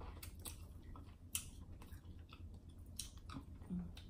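Close-miked eating sounds: wet smacking and sucking as crab meat is pulled from a cooked snow crab leg, with a few short clicks, the sharpest about a second in.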